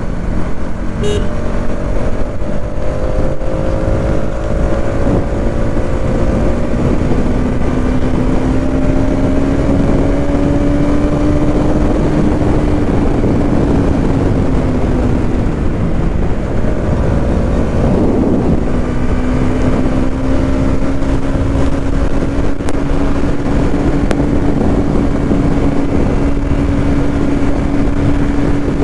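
Bajaj Pulsar NS200's single-cylinder engine running at a steady road cruise, its pitch climbing slowly, easing off about halfway through, then holding level. Heavy wind rush over the microphone runs under it.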